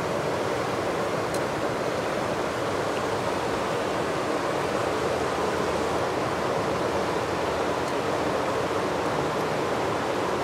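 Steady, even rush of river water flowing over rocks.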